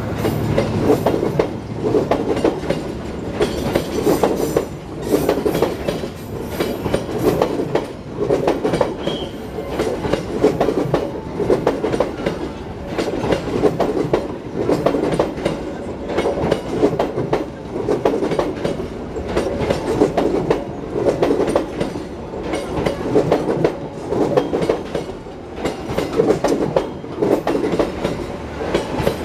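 A passenger train passing, its carriage wheels clattering over the rail joints in a steady, rhythmic run of beats.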